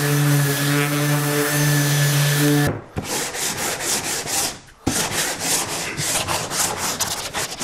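Electric orbital sander running on a spruce board, a steady hum with a hiss that stops suddenly about three seconds in. Then sandpaper is rubbed by hand over the wood in quick back-and-forth strokes, several a second.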